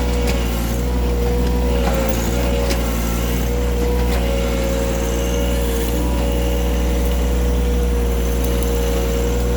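John Deere 1-series compact tractor's three-cylinder diesel engine running steadily while the backhoe scoops up soft, half-rotted debris, with a few faint knocks.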